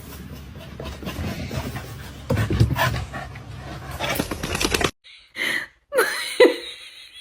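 A dog panting amid clattery movement noise. After an abrupt cut near five seconds in, a few short, high, wavering dog vocalizations follow.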